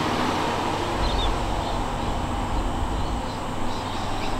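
Steady outdoor background noise with a low rumble and a few faint, short high bird chirps.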